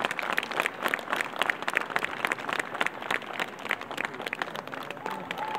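Audience applauding: a dense, uneven patter of many hand claps.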